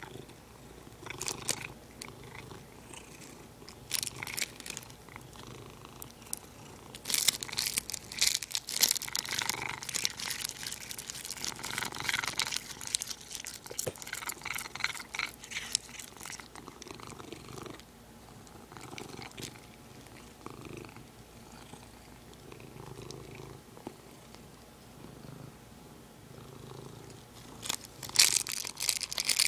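A domestic cat purring steadily while it chews and licks a plastic bag. Bursts of plastic crinkling and crackling come about a quarter of the way in, for several seconds, and again near the end.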